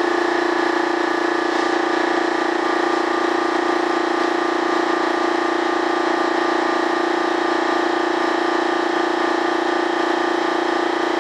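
Steady motor whine and air hiss from the spray rig used to spray a thin coat of PVA mold release.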